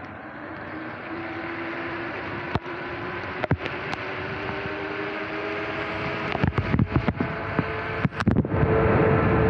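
Sur-Ron electric dirt bike's motor whining and slowly rising in pitch as it picks up speed, over the hiss of the tyres on a wet path. The noise grows louder, and in the last few seconds there is a run of sharp knocks and buffets on the microphone.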